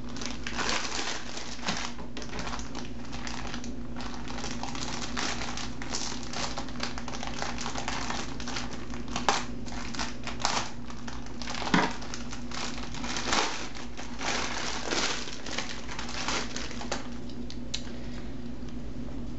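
Clear plastic wrapping crinkling and rustling in irregular crackles as it is worked off a small plush toy by hand, over a steady low hum.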